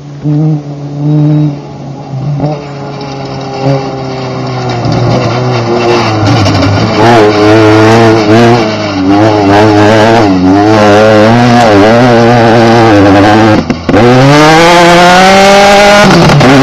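Class 10 off-road race car's engine approaching and growing steadily louder, its revs rising and falling unevenly. A few short blasts sound in the first couple of seconds. Near the end the engine drops out for an instant at a lift or gear change, then revs climb sharply as it accelerates away.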